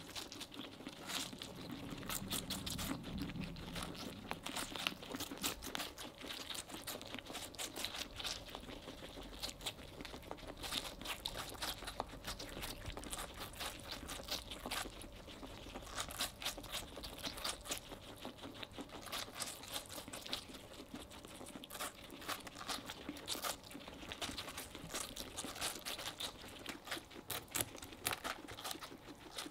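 Several guinea pigs chewing and biting into a slice of watermelon: a dense, irregular run of small crunches and clicks.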